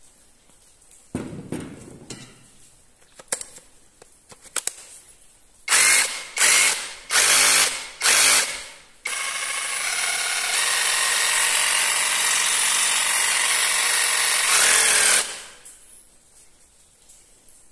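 Cordless drill triggered in four short bursts, each winding down, then run steadily for about six seconds before being released. A few handling clicks and a knock come before it.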